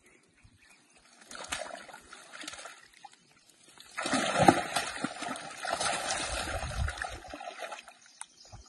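Water splashing: a few short splashes, then about four seconds of louder, continuous splashing and sloshing.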